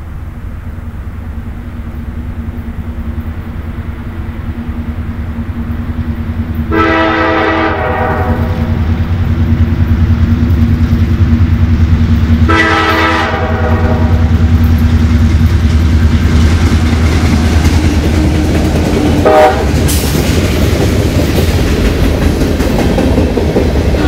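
Approaching CSX diesel freight locomotive, its engine rumble growing louder, sounding its air horn in two long blasts, the first about 7 seconds in and the second about 12 seconds in, then a brief short toot near 19 seconds. From about 20 seconds the covered hopper cars rattle and clack over the rails as they roll past.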